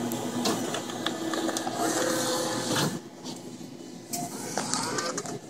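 Claw crane machine's small electric motors whirring as the claw is moved over the prize pile, with scattered clicks.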